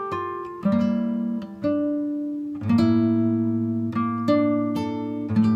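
Background music: plucked acoustic guitar playing a slow run of notes and chords, each one struck and left to ring away.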